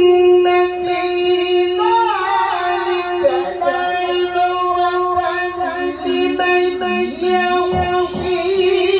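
A male qari chants the Qur'an (tilawah) in melodic style into a microphone over a sound system. He holds one long high note all through, with ornamented melodic turns around it.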